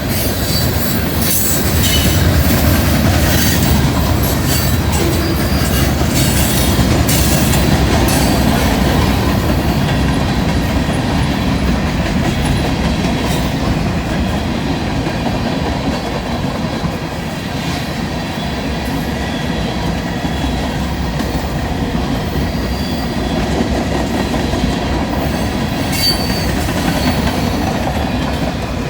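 Freight train cars rolling steadily past, a continuous rumble with wheels clicking over rail joints and brief high-pitched wheel squeals.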